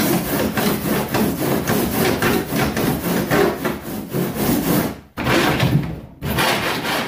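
Surform-type rasp, its handle flipped to work like a bench plane, shaving the stacked foam edges of a kayak hull in quick strokes: a dense, rapid scraping with two short pauses about five and six seconds in.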